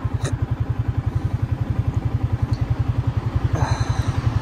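Yamaha Y16ZR's single-cylinder four-stroke engine idling at a standstill, a steady, rapid, even chugging of low pulses.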